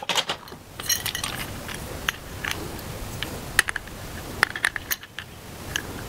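Light metallic clinks and clicks, about a dozen at irregular intervals, as the metal parts of an Ego brush cutter attachment are handled and fitted together for assembly.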